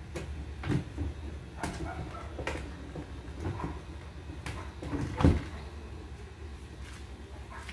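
Plastic clothes cabinet being handled and fitted together, its doors and panels giving a string of knocks and clicks, with one louder thump about five seconds in.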